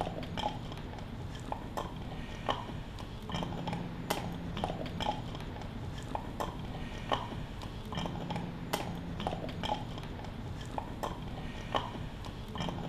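Scattered light clinks and taps of small hard objects being handled, at irregular intervals over steady room noise.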